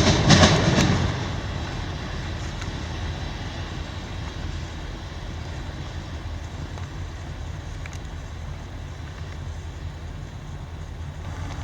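A passing freight train's wheels clatter loudly for about the first second, then fade to a steady low rumble as the train moves away.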